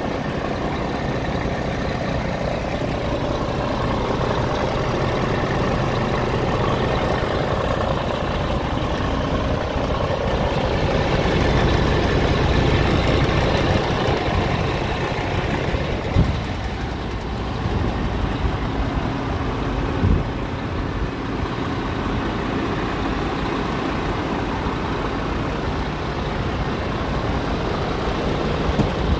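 Scania G480's inline-six diesel engine idling steadily, heard from beside the truck, with two short knocks in the second half.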